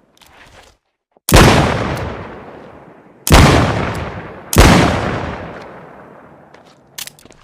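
Smith & Wesson Model 13 .357 Magnum revolver fired three times, the shots about two seconds and then just over a second apart. Each shot is followed by a long echoing decay. A few faint ticks come near the end.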